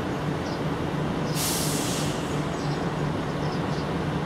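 Steady low mechanical hum of background traffic or machinery, with a short burst of hiss about a second and a half in.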